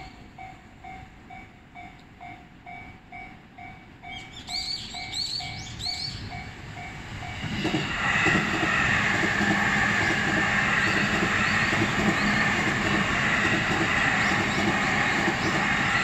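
Japanese level-crossing bell ringing a steady, fast clang of about two strikes a second, with birds chirping about four to six seconds in. About eight seconds in, a JR Chuo Line E233-series electric train arrives and passes over the crossing, louder than the bell, its wheels clattering rhythmically over the rail joints.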